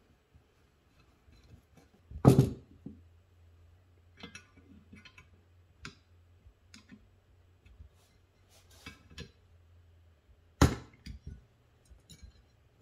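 A screwdriver working the screws of a Rochester 4GC carburetor's cast body, with scattered small clicks and clinks of metal parts, and two louder thumps, about two seconds in and near the end.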